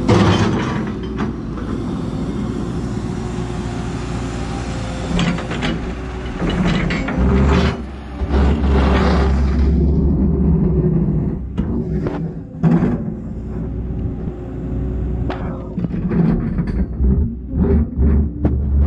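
Excavator running as it digs: the engine and hydraulics drone steadily and swell louder at times under load, while the steel bucket scrapes and knocks in the dirt.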